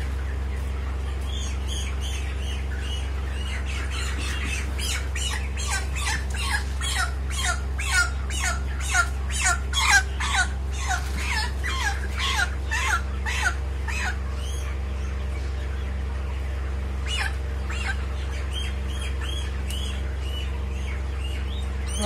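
Broiler chicken squawking in a rapid series of short, falling distress calls, about two a second, while being handled. The calls grow louder toward the middle, stop about fourteen seconds in, and come back as a few scattered calls later.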